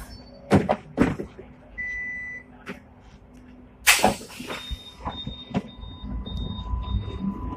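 Inside a Hong Kong double-deck tram at a stop: clacks and knocks as passengers leave through the front exit, and a short electronic beep about two seconds in as a fare card is tapped on the reader. A loud clack comes about four seconds in. After that the tram's low running rumble builds as it pulls away, with faint repeating high beeps.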